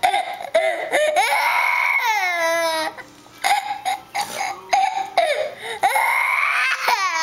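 A young Jack Russell terrier howling with its muzzle raised, answering a toddler's wailing fake cry; the high howls and the crying overlap in long wails, some sliding down in pitch.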